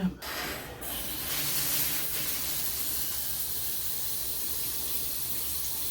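New handheld shower head spraying water with a steady hiss once the water is turned on about a second in. The fresh connection is holding without a leak.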